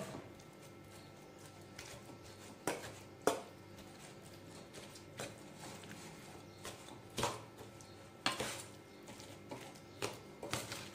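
Steel spoon clinking and scraping against a stainless steel bowl while mashing cooked pumpkin, with a handful of sharp clinks at irregular intervals.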